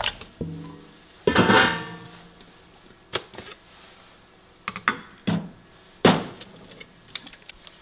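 Background music of a plucked acoustic guitar: a few separate notes and a strum, each ringing briefly and dying away.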